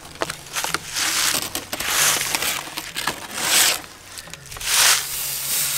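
Raw steaks being laid on a hot charcoal barbecue grill, giving bursts of sizzling as each one goes on, with a few clicks before them.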